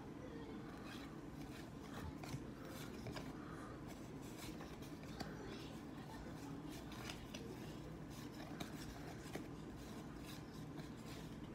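A stack of baseball trading cards being flipped through by hand: faint, irregular card-on-card slides and flicks, heard over a low, steady hum.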